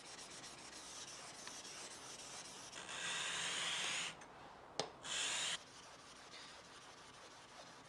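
Steel plane blade rubbed back and forth on a wet whetstone, a steady gritty scraping that grows louder for about a second near the middle, with one sharp click about five seconds in.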